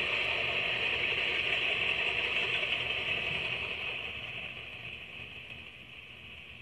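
Freight train rolling by on the rails, a steady rumble with a hissing ring. It fades steadily from about three seconds in as the end of the train passes and moves off.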